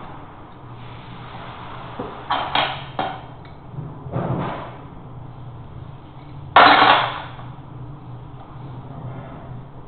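A series of knocks and short scraping strokes of hand work, about two seconds in and again about four seconds in. About two-thirds of the way through comes the loudest, a sudden harsh half-second scrape or bang.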